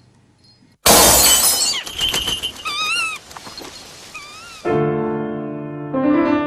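A sudden loud crash of breaking glass about a second in, followed by a few short warbling calls, then soft piano music comes in about two-thirds of the way through.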